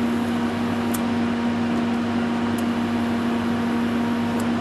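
Steady electrical hum from the homemade electropolishing rig's power supply while the carbon fibre brush works a stainless steel weld seam, with three faint, brief high ticks.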